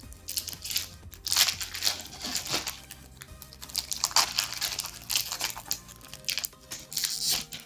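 Foil Pokémon booster pack wrapper being torn open and crinkled by hand, in irregular crackling bursts. Background music plays underneath.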